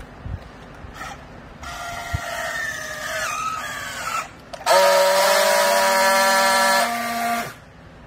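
Battery-powered handheld plastic-strapping tool working a strap around a bale: first its tensioning motor runs with a whine that sags in pitch as the strap pulls tight, then, after a short pause, a louder, very steady buzz for about three seconds as it friction-welds the strap's seal, cutting off abruptly.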